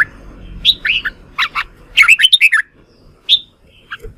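Red-whiskered bulbul singing its combative fighting song. Loud bursts of quick notes that sweep up and down in pitch come in three or four phrases, then two short single notes near the end.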